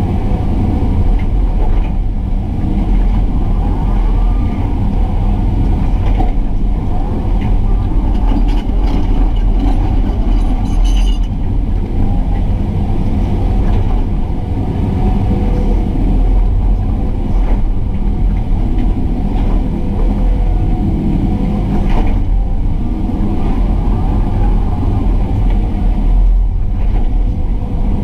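Excavator's diesel engine running steadily under working load, with a steady hydraulic whine over it and a couple of sharp knocks.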